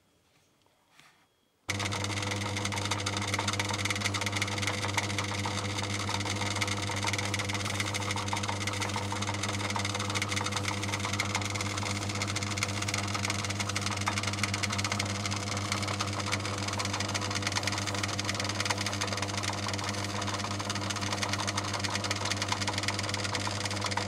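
Metal lathe running steadily, a constant mechanical hum that starts suddenly about two seconds in.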